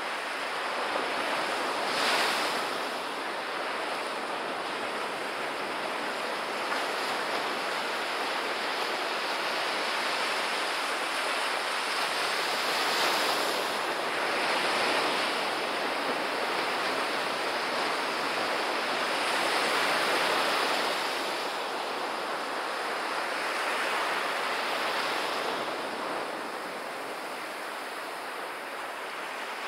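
Surf on a sandy beach: waves breaking and foam washing up the shore, in surges that swell and fade every few seconds.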